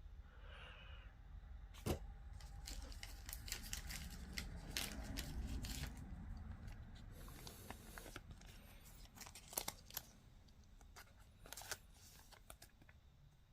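Faint rustling and light clicks of trading cards and their foil pack wrapper being handled, with a few sharper taps about 2, 10 and 12 seconds in.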